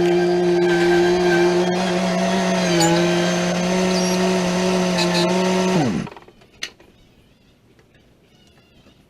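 A machine's motor running at a steady pitch, then switched off about six seconds in, its pitch dropping quickly as it winds down. A couple of light knocks follow.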